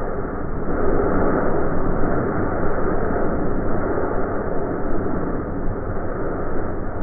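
Steady rushing noise of a large mass of burning matches, heard dull and muffled with no high end.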